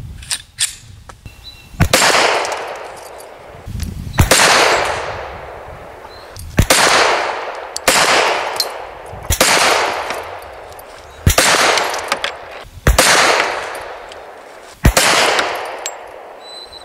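Glock 10 mm long-slide pistol fitted with a .40 cal Lone Wolf aftermarket barrel, fired slowly: about eight shots one to two seconds apart, each crack followed by a ringing echo. A few light clicks of the pistol being handled come before the first shot.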